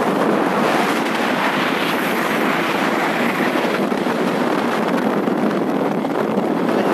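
Steady, rough rush of wind buffeting the microphone on a moving motorbike, with road noise mixed in.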